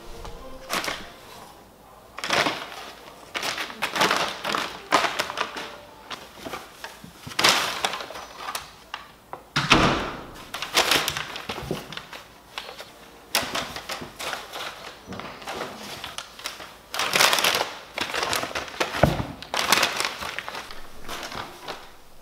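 Stiff brown kraft paper crinkling and rustling in irregular bursts as kittens dash under and pounce on it, with a couple of dull thumps on a hardwood floor.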